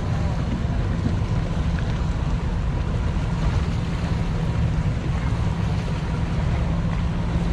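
Steady low rumble of wind on the microphone over open sea, mixed with water sloshing against the hull.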